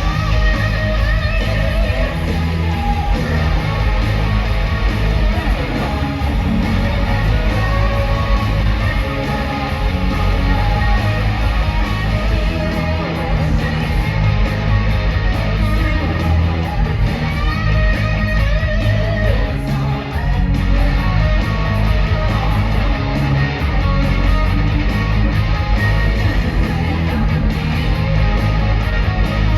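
Loud heavy rock music with electric guitar and a steady beat, played over a show's sound system.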